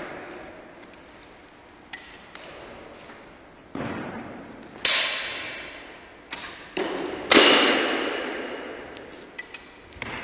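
Traditional longbow shooting: sharp thuds and knocks of the bow's release and the arrow striking the target, each ringing on in a long hall echo. The loudest come about five and seven seconds in.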